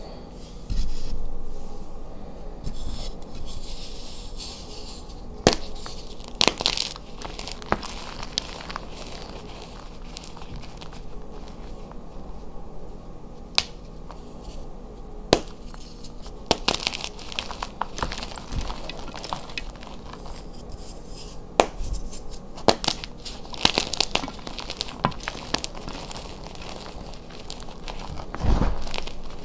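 Blocks of dyed gym chalk (magnesium carbonate) crushed and crumbled by hand: a steady dry, gritty crunching, broken every few seconds by a sharp crack as a piece snaps off.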